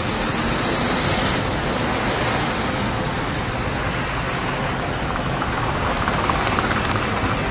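Steady road traffic noise: a continuous rumble and hiss of passing vehicles with no break.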